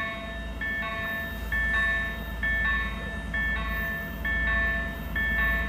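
2M62 diesel locomotive approaching with a freight train, its two-stroke diesel engines giving a low steady rumble. Over it a ringing bell-like tone repeats evenly, about once a second.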